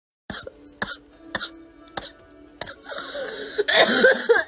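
A girl's barking cough: five short, sharp coughs about half a second apart, then a longer, louder, rougher stretch with voice in it from about three seconds in.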